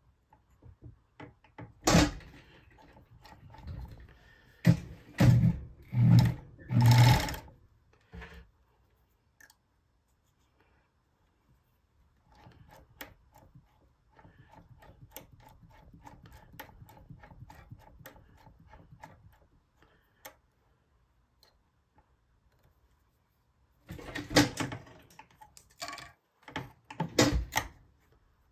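Bonis fur sewing machine being worked by hand: several loud knocks and clatters, then about eight seconds of faint, rapid, even stitching, and more clatter near the end.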